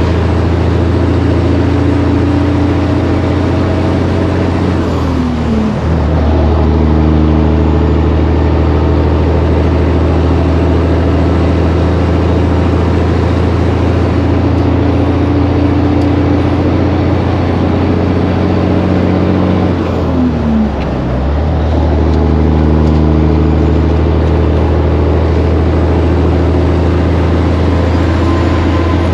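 Heavy diesel semi-truck engine running under load while driving, with two gear changes, about five and about twenty seconds in, where the revs drop briefly and then the engine pulls on.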